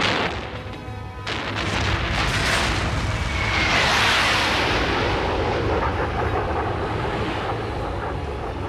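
Dramatic background music under a jet flyby sound effect. A rushing jet roar swells to a peak about four seconds in, with a short falling whistle as it passes, over a steady low rumble.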